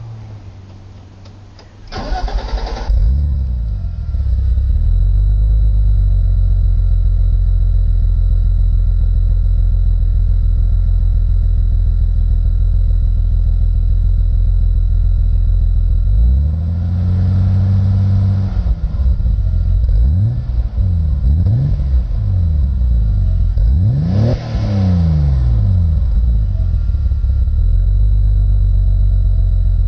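BMW 525i E34's straight-six engine cranking and starting about two seconds in, then idling through the exhaust. Over the second half it is revved once slowly and then blipped several times in quick rises and falls, before dropping back to a steady idle.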